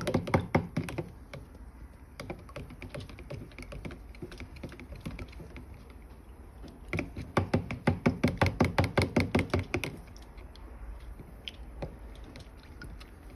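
Quick rhythmic tapping and clicking as a batch of pearl paint is mixed in a mixing cup. It comes in two spells, one in about the first second and a longer one from about seven to ten seconds in.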